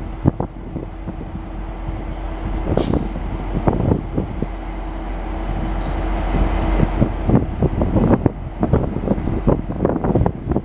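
N class diesel locomotive pulling out with its train, the engine rumbling steadily under one faint held tone, with irregular knocks and wind buffeting the microphone.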